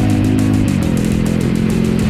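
Motorcycle engine running on the move, its pitch falling about two thirds of a second in and then holding steady, mixed with background music.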